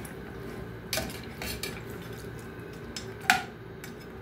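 A spatula stirring mutton pieces in water in a pressure cooker pot, scraping and knocking against the metal sides a few times. The loudest knock comes a little after three seconds in and rings briefly.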